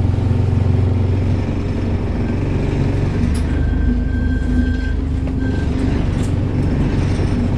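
Diesel engine of a Mercedes-Benz 1315 bus running steadily while the vehicle is driven. Its low note drops a little about three seconds in.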